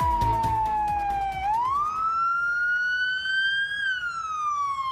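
Police car siren in a slow wail: the tone falls, rises for about two seconds, then falls again. A low rumble lies under the first second and a half.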